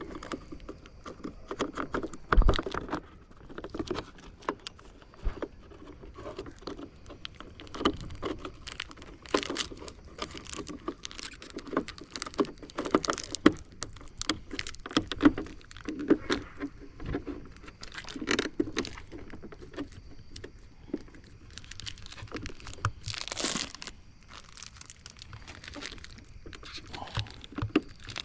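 Hands working on small plastic parts: irregular clicks, knocks and rustling as a mirror marker light and its wiring are handled and pressed into place, with a sharper knock about two and a half seconds in and a longer rustle near the end.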